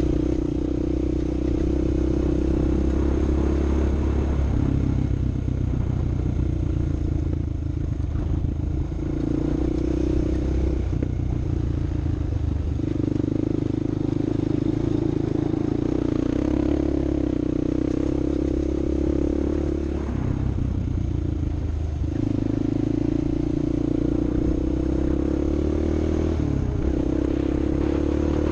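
Off-road vehicle engine running steadily under varying load, its pitch stepping up and down every few seconds, with some rattling and clatter.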